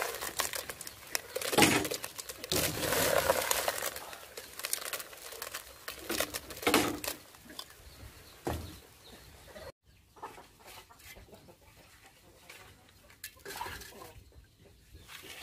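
Small black shellfish clattering and rattling against a metal cooking pot as they are scooped and handled, in sharp bursts of clicks and knocks. The clatter gives way to quieter, scattered clicks after about ten seconds.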